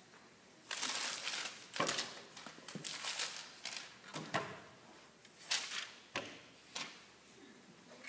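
Paper crinkling and rustling, broken by several sharp knocks on school desktops, played as percussion.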